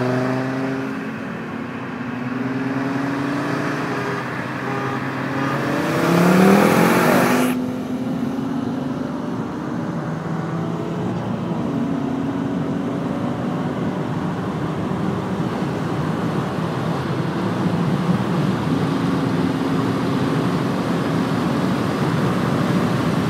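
Car engines under hard acceleration, with wind and road noise, heard from inside a car running alongside a Ford Focus RS. About six seconds in, the engine pitch sweeps up with a loud rush of noise that cuts off suddenly; after that the engine note holds steady and climbs slowly.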